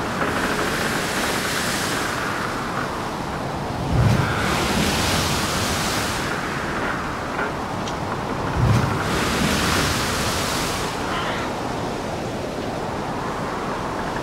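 Waves surging and crashing with wind, the wash swelling and fading every few seconds, with two deeper crashes about four and nine seconds in.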